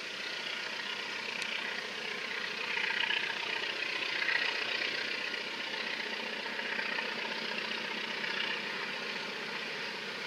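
Distant diesel locomotive of an approaching freight train, heard as a steady engine sound that swells and eases a little, with no horn.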